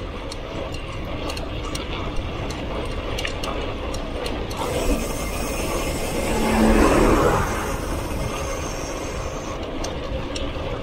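Mountain bike rolling on a concrete road, with scattered irregular ticking from the freewheel and drivetrain over a steady rush of tyre and wind noise. About six seconds in, a louder rushing swell with a low hum rises and fades.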